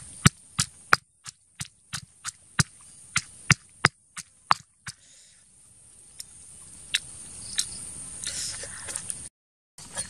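Stone pestle knocking against a stone mortar while pounding shredded green papaya: sharp knocks about three a second for the first four and a half seconds, then only a few scattered knocks. The sound drops out briefly near the end.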